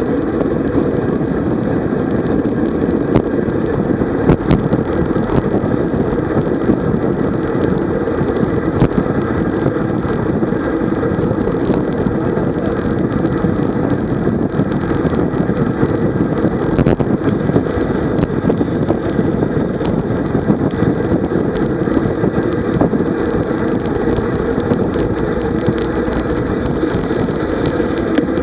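Steady wind noise buffeting a bike-mounted camera's microphone as a road bicycle descends at about 55 km/h, mostly deep rumble, with the odd faint click.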